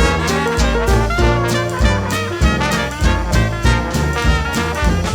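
Upbeat swing-style background music with brass and a steady beat.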